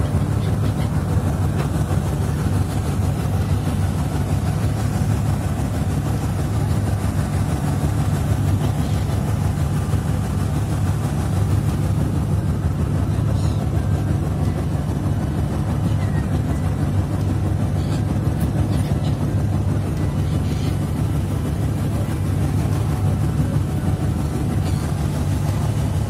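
Steady low drone of a boat's engine, heard from on board, running evenly without change.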